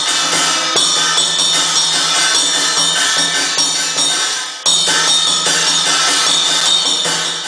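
Hand percussion played continuously: a jingling hand-held frame drum like a tambourine, with drum strokes and cymbal, over a steady low hum. The playing drops away briefly about two-thirds through and starts again abruptly.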